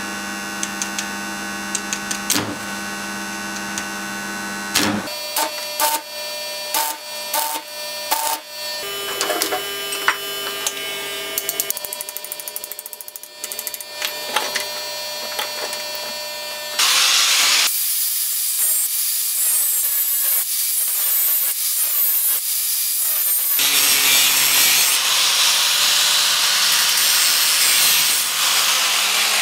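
Stick welding on a steel hammer head: a steady machine hum, then irregular crackling arc strikes, then a steady sizzling arc for several seconds. In the last few seconds an angle grinder grinds the weld down.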